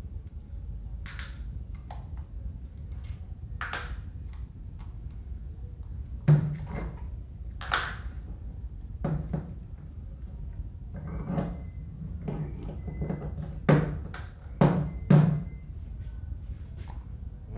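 Parts of an old Arno electric fan being handled and taken apart: a string of clicks and knocks, with several louder knocks in the second half.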